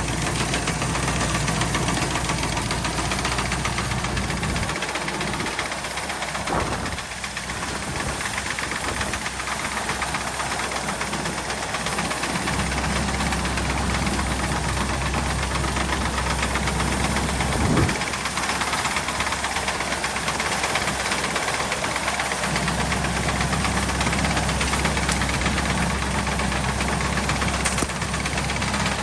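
65 hp Al-Ghazi tractor's diesel engine running with a knocking beat. Its deep low hum drops away for several seconds twice and comes back, and two short sharp knocks stand out.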